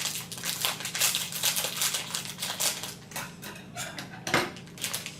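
Hands opening a mystery-pack collectible toy: a rapid, irregular run of packaging crinkling and clicking, with one sharper click near the end.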